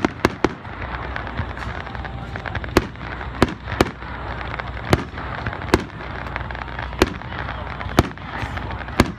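Aerial fireworks display: sharp shell bursts about once a second, some in quick pairs, over a steady background of noise.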